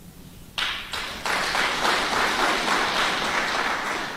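Crowd applauding: it breaks out about half a second in, swells a moment later, and begins to die down near the end.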